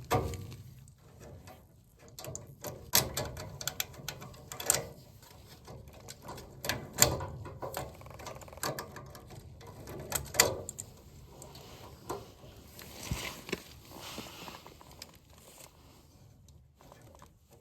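Irregular clicks and light knocks of hands working the wiring of a furnace control board, pulling wire connectors off the board, with a brief rustle about two thirds of the way through.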